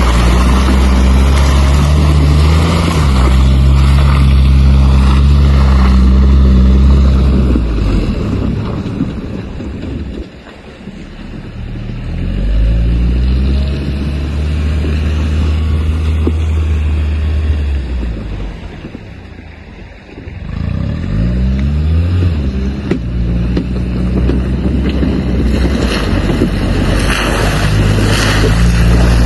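A six-wheeled all-terrain vehicle's engine running under load as it drives. It fades twice, about a third and two-thirds of the way through, and each time revs back up with a rising pitch.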